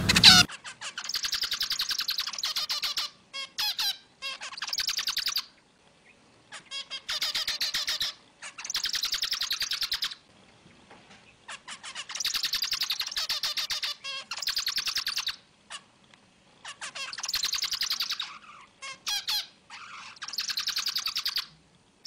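Zebra finch song: bouts of rapid, buzzy, nasal notes lasting a second or two, repeated again and again with brief pauses, and single short calls between the bouts.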